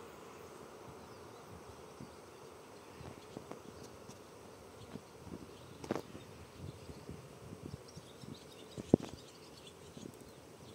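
Faint outdoor ambience: a low hum that fades over the first few seconds, a scatter of light clicks, and one sharp click about nine seconds in.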